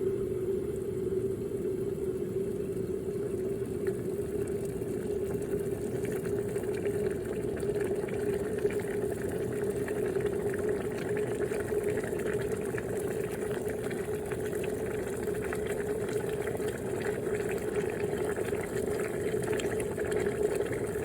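Water at a full boil, bubbling steadily with a fine crackle of popping bubbles and a steady low tone underneath.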